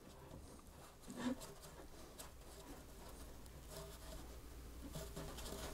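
Faint scraping and rubbing as a cardboard rocket body tube is handled in gloved hands while the epoxied shock cord mount is worked into place inside it, over a steady low hum.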